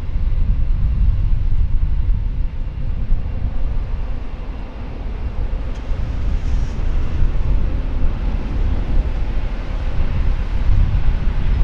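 Wind buffeting the microphone, heavy and low, over the distant rumble of an Aer Lingus Airbus A321neo's jet engines at takeoff power as it rolls down the runway.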